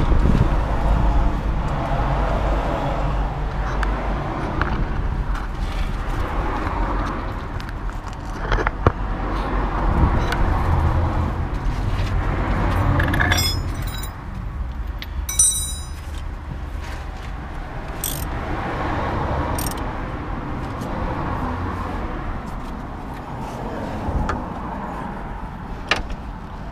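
A few sharp metallic clinks and one brief ringing clink from hand tools (socket wrench and sockets) handled under a car, over a steady low rumble.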